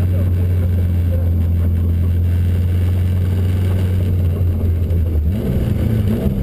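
Subaru STI's turbocharged flat-four engine heard from inside the cabin, a loud steady low drone as the car drives at a constant engine speed; the engine note changes and breaks up about five seconds in.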